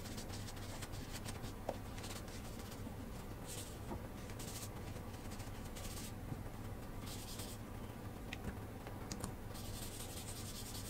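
Paper tissue rubbing oil into a wooden rolling pin: soft swishing strokes in short, irregular bursts, with a few light taps of the wood.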